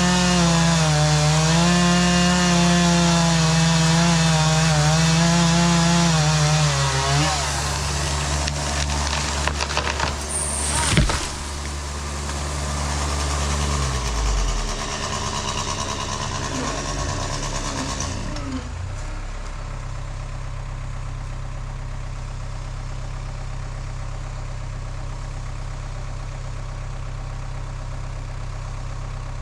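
Chainsaw running at cutting speed, its pitch wavering under load, then dropping away. A single sharp crack follows, and the sound settles into a steady low engine idle.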